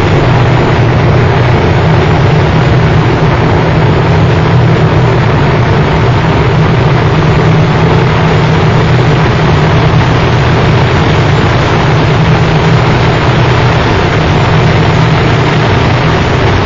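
Noise music: a loud, unchanging wall of dense distorted noise over a heavy low drone.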